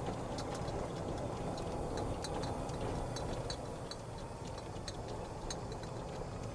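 Golf cart driving along a paved cart path: a steady low running noise from the motor and tyres, with scattered light ticks and rattles.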